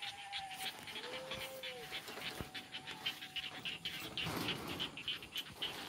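Animal calls: a short whine rising and falling about a second in, over rapid repeated high chirping.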